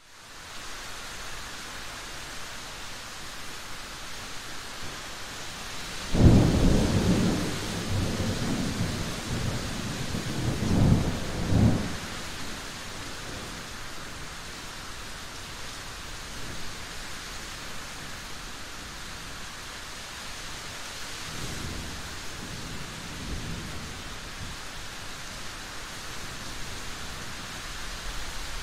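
Thunderstorm with steady rain: a loud thunderclap about six seconds in rolls into a rumble that swells again a few seconds later, then dies away. A fainter, more distant rumble of thunder follows about midway through the rest.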